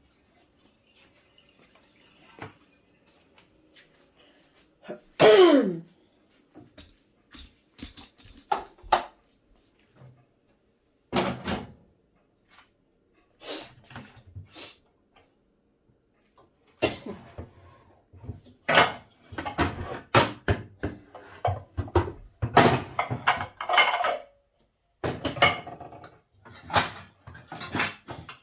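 Kitchen clatter: a cooking pot and utensils knocked, scraped and set down in a series of sharp clinks. One loud scrape with a falling pitch comes about five seconds in, and a busier run of clattering comes over the last ten seconds.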